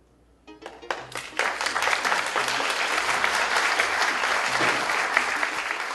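Theatre audience applauding: a few scattered claps about half a second in, swelling within a second into full, steady applause.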